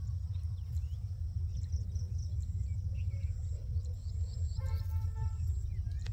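Outdoor rural ambience: a steady low rumble with faint high chirping of insects and birds, and a brief distant call about four and a half seconds in.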